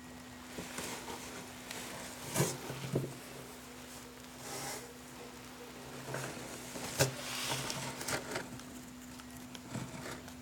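Soft rustling and scratching as a hand handles kittens about two weeks old and they stir on blankets in a cardboard box, with a few louder clicks about two and a half and seven seconds in, over a steady low hum.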